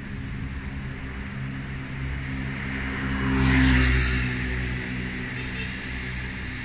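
A boat's engine running steadily on the canal. A louder passing whoosh swells and fades around the middle.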